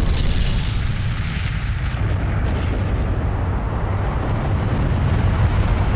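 Nuclear explosion sound effect: the deep, steady rumble of the blast continuing after its sudden start. A hissing roar on top fades over the first couple of seconds.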